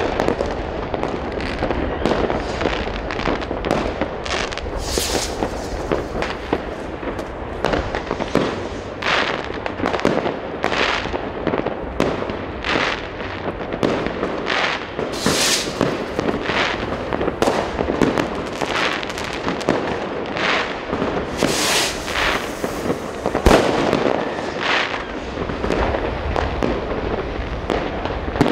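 Dense New Year's Eve fireworks and firecrackers going off without pause, overlapping bangs and crackling, some with a long hissing crackle. A single very sharp, loud bang stands out about 23 seconds in.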